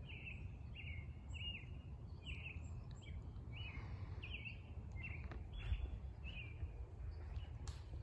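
Eastern grey squirrel barking its alarm call: about ten short barks, a little more than one a second, over a steady low background rumble. A sharp click comes near the end.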